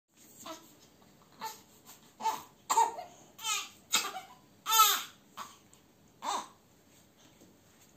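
Boxer dog sniffing close up, making a string of about nine short snorts and snuffles, some with a whiny pitch.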